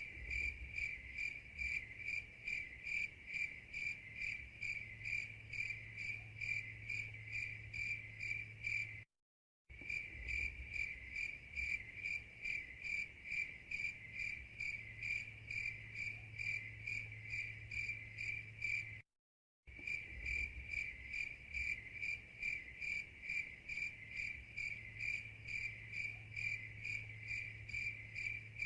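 Crickets chirping in a steady rhythm of about two to three high chirps a second, the stock 'awkward silence' effect. The sound cuts out to dead silence for about half a second twice, at the seams of a looped recording.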